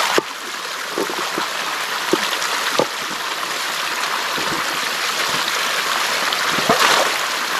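A hill stream flowing and trickling steadily, with a few brief knocks.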